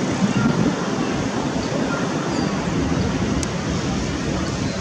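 Boeing 787-10's jet engines at low taxi power giving a steady, even rush and rumble, mixed with wind on the microphone.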